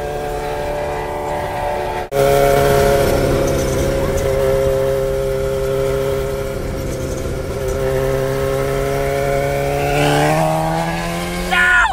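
Sport-bike engine running at a steady pace, its note climbing as it accelerates near the end. The sound drops out briefly about two seconds in.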